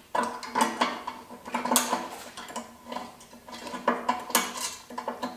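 Small metal hardware clinking and rattling against the steel latch mechanism and its hollow steel housing on an ARB rear tire carrier as it is assembled by hand: a string of irregular metal-on-metal knocks and clicks, several with a short ring.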